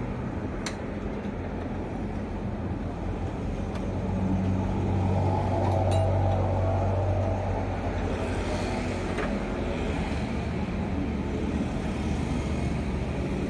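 Steady low motor-vehicle engine hum that swells about midway and then eases, like traffic passing on the road, with a few light metal clicks from tools as a scooter exhaust is bolted on.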